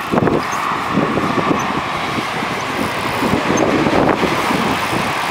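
Steady rushing ride noise heard from a moving bicycle: wind on the microphone mixed with tyre rumble and traffic on the road alongside.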